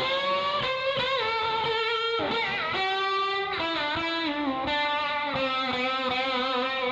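Electric guitar with distortion playing a lead melody of held notes that bend and slide into one another, with vibrato on the sustained notes.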